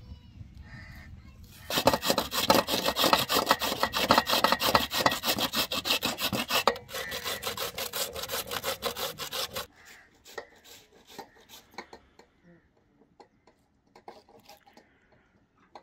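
Radish being grated by hand on a stainless-steel box grater over a steel tray: quick, even strokes that start about two seconds in and stop about ten seconds in.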